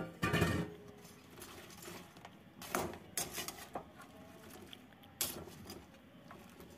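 Metal slotted spoon scraping through fried potato cubes in a non-stick pan, with a louder scrape about half a second in, then a few sharp clinks of the spoon against the pan as the pieces are turned.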